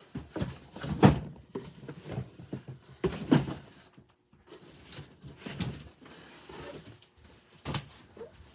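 Cardboard boxes being handled and set down during unpacking: irregular knocks and rustles, with two louder thumps, one about a second in and one just after three seconds.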